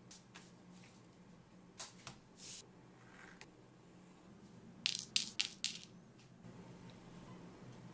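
Hands handling leather pieces on a cutting mat: soft rubs and taps, then a quick run of four or five sharp clicks about five seconds in.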